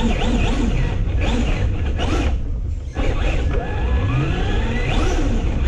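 Traxxas Slash 2WD 1/10-scale RC truck's electric motor and drivetrain whining, the pitch swinging up and down with the throttle as it drives, heard from a camera mounted on the truck. The whine drops away briefly about two and a half seconds in, then rises again as it accelerates.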